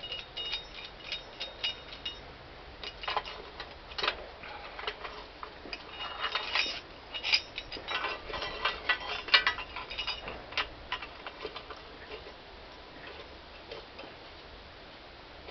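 Light, irregular metallic clicks and clinks of hand tools and parts being handled, thick for the first ten seconds or so and thinning out toward the end.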